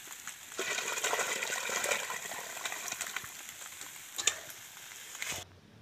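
Tilapia and broth poured from one cooking pot into another pot of boiling water over a wood fire: a splashing, hissing pour that is loudest in the first half, with a sharp metal clink about four seconds in. The sound cuts off suddenly near the end.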